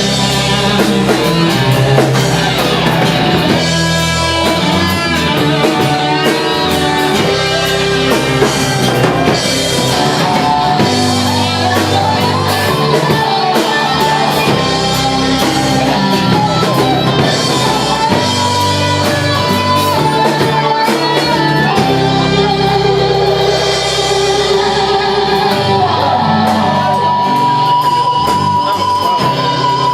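Rock band playing live: guitars over bass and drum kit, with a long held guitar note near the end.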